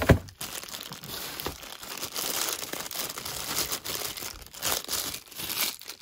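Thin plastic packaging crinkling and rustling as a small black plastic part is worked out of its clear plastic bag, after a single thump right at the start.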